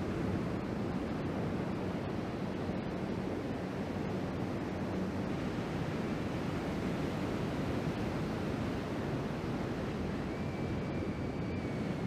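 Waves breaking on the beach, a steady wash of surf with some wind on the microphone. A faint high tone sounds briefly near the end.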